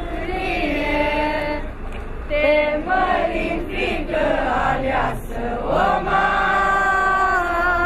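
A crowd of pilgrims singing a slow religious hymn together, women's voices to the fore, with long held notes.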